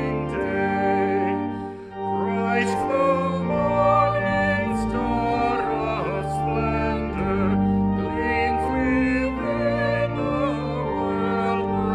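Church organ playing a slow hymn tune in sustained chords over a moving bass line.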